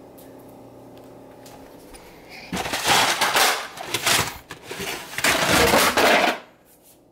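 Boxes and packages being shoved around on a wooden kitchen-cabinet shelf, rattling and scraping in several loud bursts that start about two and a half seconds in and stop near the end, over a low steady hum.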